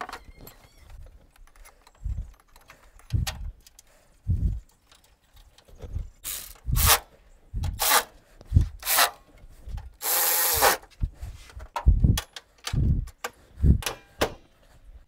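Plastic air-intake box and duct being fitted back onto an engine by hand, with a hand tool: irregular knocks, clicks and rubbing of plastic parts. A longer harsh rasping sound comes about ten seconds in.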